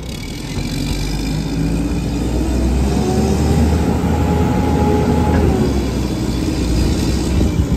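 Old Mack garbage truck's diesel engine pulling away and accelerating, getting louder over the first few seconds, its note rising about halfway through and easing off near the end.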